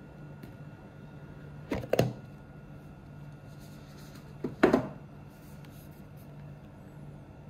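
A cardboard camera box being opened by hand: two short scrapes and rustles of cardboard as the lid is worked loose and lifted off, about two seconds in and again about two and a half seconds later.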